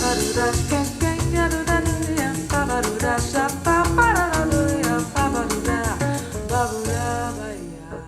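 Bossa nova song with singing, played back through EgglestonWorks Viginti floor-standing loudspeakers. It fades out near the end.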